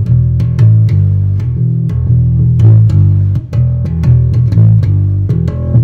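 Squier Precision Bass played through an amp: a riff of quick plucked notes, several a second, on 12-year-old strings just revived by boiling, with the punch the player hears in them.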